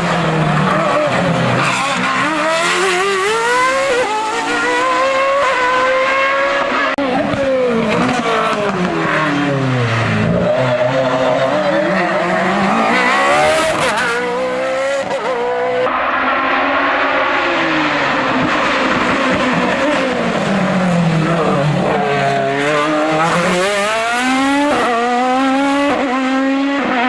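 Hill-climb race car engine at full throttle, its pitch climbing through the gears and dropping away again and again.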